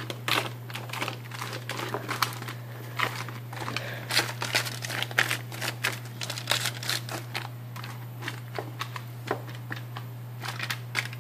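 Aluminium foil roasting pan crinkling and crackling as it is handled, in many irregular short crinkles, over a steady low hum.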